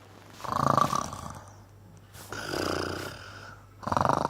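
Breathy, pulsing laughter in three bouts of about a second each.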